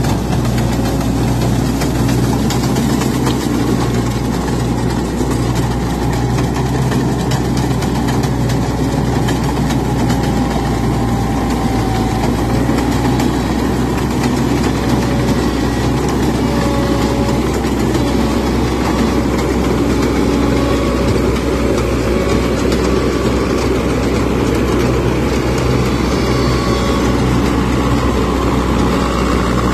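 Kartar 3500 tracked combine harvester running steadily while harvesting rice in mud: a continuous diesel engine hum together with the whir of its cutting and threshing machinery, with a few faint higher whines coming and going.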